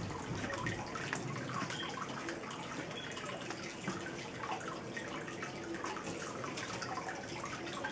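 Steady dripping and trickling of water, many small drips close together.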